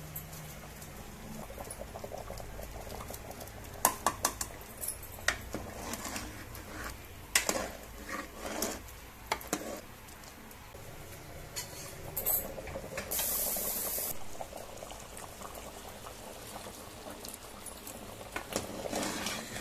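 Chicken gravy bubbling at the boil in an aluminium pot. A metal ladle clinks and knocks against the pot as the gravy is stirred, several times between about four and nine seconds in. A brief hiss follows a few seconds later.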